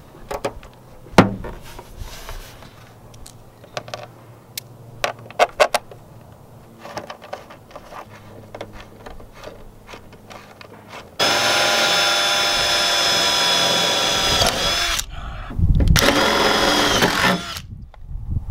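Cordless drill drilling holes through a widebody fender panel on the car body: after some light clicks and knocks, it runs steadily at full speed for about four seconds, stops, then runs again for under two seconds.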